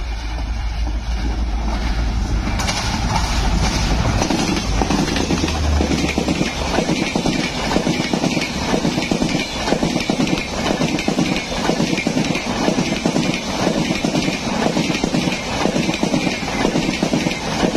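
WDP4D diesel-electric locomotive passing at speed, its engine a deep rumble for the first few seconds. Then the express's coaches rush past, their wheels clattering on the track in a fast, steady rhythm.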